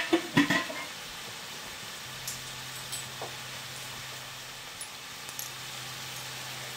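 A few quick metal clinks of kitchen utensils against a stainless steel mixing bowl, then a steady faint hiss with a low hum and a few light ticks.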